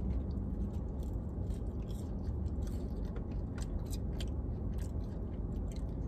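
A person chewing French fries close to the microphone, with irregular small mouth clicks and crunches, over a steady low rumble.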